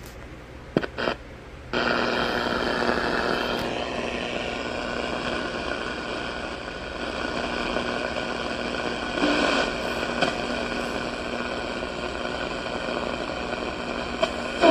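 Two short clicks about a second in, then a radio receiver's speaker comes up suddenly with steady static and faint steady hum tones.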